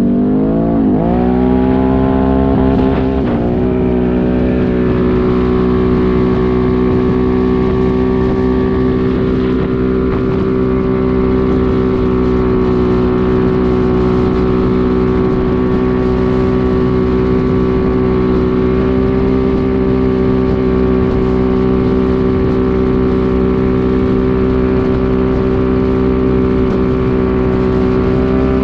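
2018 Can-Am Renegade XMR 1000R's V-twin engine running through an SLG Sniper Series slip-on exhaust. The revs climb over the first few seconds as the ATV gets under way, then hold steady at cruising speed.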